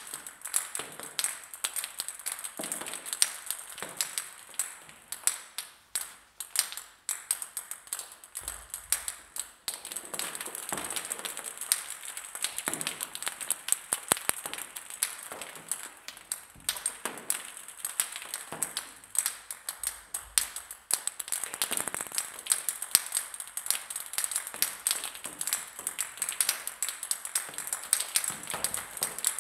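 Many table-tennis balls bouncing on a hard floor: a dense, irregular patter of light, sharp clicks, some quickening into fast taps as single balls bounce lower and settle.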